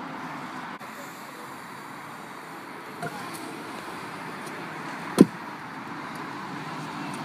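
Kick-scooter wheels rolling on a concrete skatepark, a steady rumble, with one sharp clack about five seconds in.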